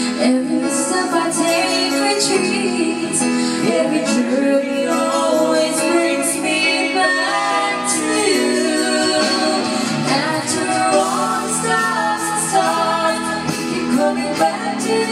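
A song playing: music with a female voice singing.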